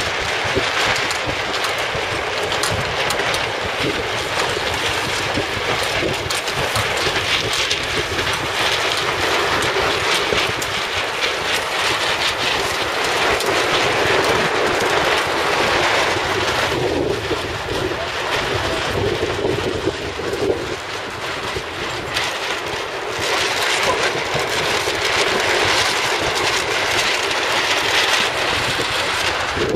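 Steady rush of strong wind buffeting the microphone, mixed with choppy water washing along the hull of a moving sailing boat.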